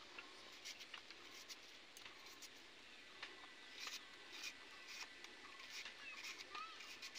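Faint crisp cuts of a knife slicing through a red onion held in the hand, small clicks coming irregularly about twice a second.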